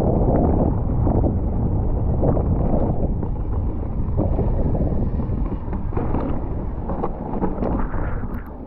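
Wind rumbling on a mountain biker's camera microphone, mixed with tyre noise on a dirt singletrack and short knocks and rattles from the bike over bumps.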